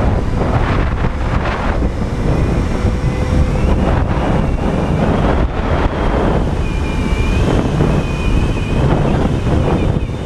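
Wind rushing and buffeting over the microphone of a helmet-mounted GoPro Hero 3+ in a more open case, on a moving motorcycle: a loud, steady rush heaviest in the low end. A faint high whine wavers through the second half.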